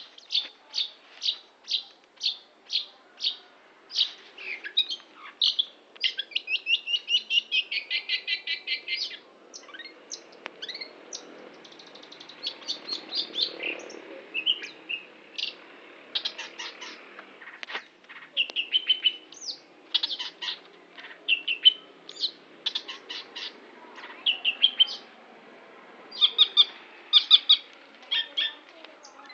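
Long-tailed shrike (cendet) singing: a string of sharp, evenly spaced high notes, then a rapid chattering run, followed by varied phrases with short pauses between them.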